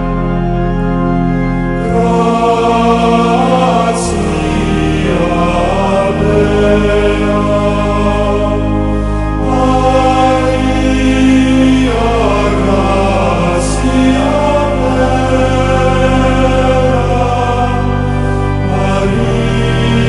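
Background music: sung, choir-like vocals over sustained chords and a bass line, the chords shifting every few seconds.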